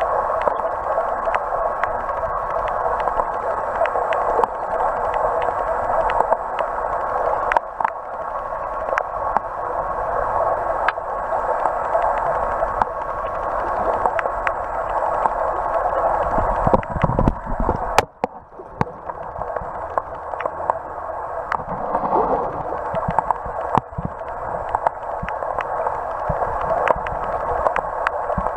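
Muffled, narrow-sounding water noise picked up by a camera held underwater, with many small clicks and ticks throughout. A low rumble builds about two-thirds of the way through and then drops away sharply for a moment.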